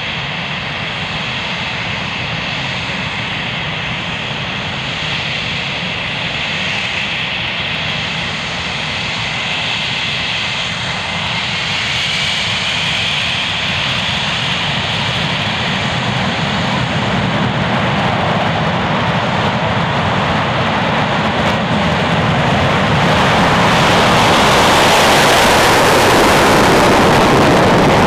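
Twin Rolls-Royce Avon turbojets of an English Electric Lightning F6 whining steadily at taxi power. Near the end a much louder, wider roar takes over as the engines run in reheat for a takeoff-style run down the runway.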